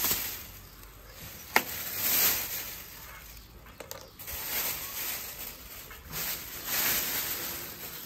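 Rustling and handling noises in uneven bursts, with a single sharp click about one and a half seconds in and a few small ticks near the middle.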